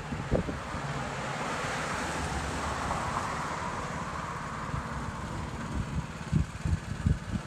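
Wind buffeting the microphone over passing street traffic, with a swell of road noise that builds and fades about midway.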